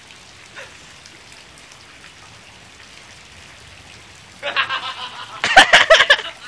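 Steady faint hiss of water. About four and a half seconds in, loud excited voices break in, shouting and exclaiming without clear words, with a few sharp clicks among them.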